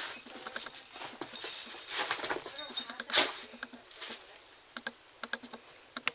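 American bulldog sniffing and snuffling at a small toy close to the microphone: a run of short, crackly sounds with a few sharper clicks that dies down about four seconds in.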